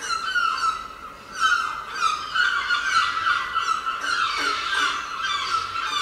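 Many birds chirping at once, a dense chatter of short falling calls with no pauses.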